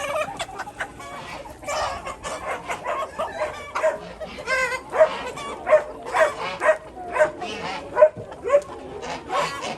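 Animals calling: a run of short, sharp calls, coming about twice a second in the second half, with one longer pitched call near the middle.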